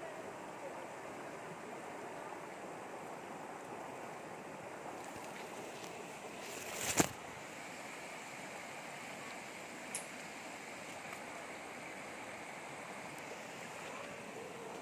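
Shallow river water rushing steadily over rocks and small rapids. A single sharp knock stands out about halfway through, followed by a fainter click a few seconds later.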